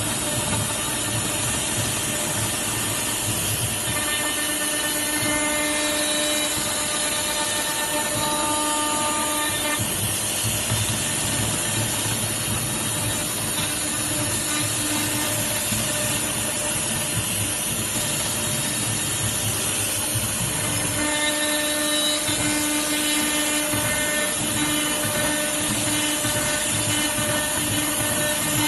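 CNC router spindle milling aluminum: a steady machining noise with a hum whose tones strengthen for several seconds at a time as the cut changes.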